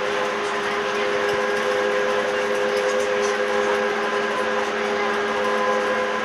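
Electric trolleybus running at a steady speed, heard from inside: a constant electric drive whine of several steady tones over even tyre and road noise.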